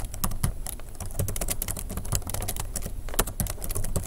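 Typing on a computer keyboard: a quick, continuous run of key clicks as a line of text is typed.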